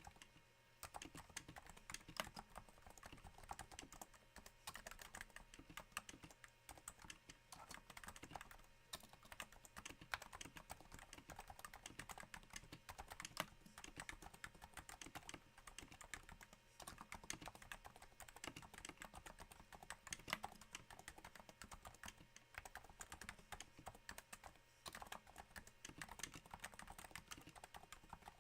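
Quiet, steady typing on a Cooler Master Novatouch keyboard with Topre electro-capacitive rubber-dome switches, their bottom-out damped by Hypersphere silencing rings: a dense, irregular patter of soft key presses with a few short pauses.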